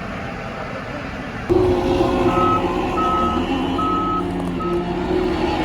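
John Deere 331G skid steer running, its engine note stepping up louder about a second and a half in, then its backup alarm beeping four times as it reverses.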